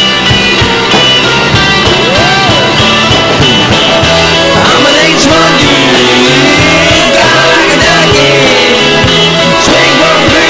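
Loud rock song with guitar, dense and steady in level.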